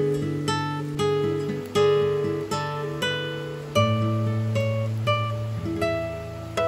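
Background music: plucked acoustic guitar, a new note or chord about every half second, each ringing and fading.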